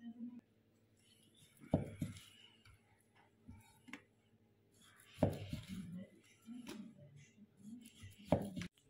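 Knife and cleaver blades knocking against a wooden end-grain chopping block three times, about three seconds apart, each followed by a short scrape of the blade cutting through raw meat.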